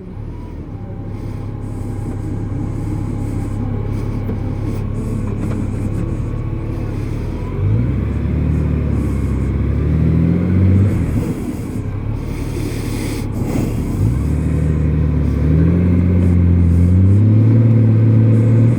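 2003 Honda Gold Wing's flat-six engine running, its pitch rising twice as it revs up, about halfway through and again near the end, each time falling back.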